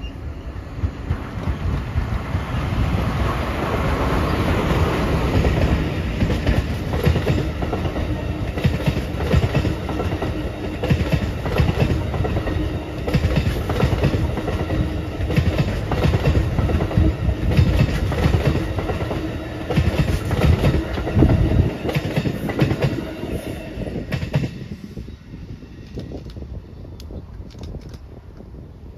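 Amtrak passenger train led by an ACS-64 electric locomotive passing close by: a loud, steady rush and rattle of steel wheels on rail with rapid clicking over rail joints, building over the first few seconds. The noise drops away sharply about 25 seconds in as the last coach passes.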